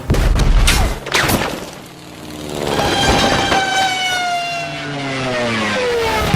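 Train-crash sound effects: several sharp crashing impacts in the first second or so, then a long pitched wail that slowly falls in pitch.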